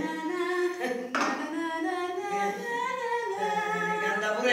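A woman singing a slow tune, her voice holding and gliding between long notes.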